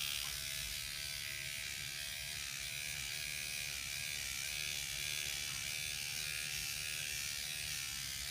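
Rejuvapen electric microneedling pen running steadily with a buzzing hum as it is worked over the skin of the face, its pitch wavering slightly.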